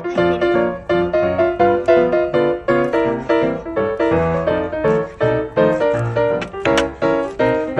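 Background piano music: a steady, even run of notes.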